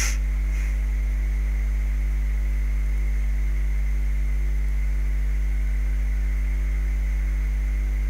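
Steady electrical mains hum with a faint hiss, from the recording setup, with a brief click right at the start.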